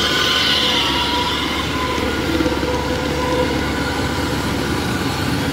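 Kubota DC-105X combine harvester's diesel engine running steadily as the machine crawls past close by, with a steady whine on top.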